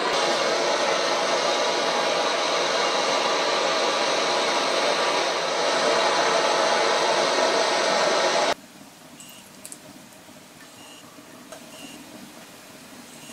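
Blacksmith's forge running with a loud, steady rushing noise that cuts off suddenly about two thirds of the way in. After that it is much quieter, with short high beeps from a handheld infrared thermometer about a second apart.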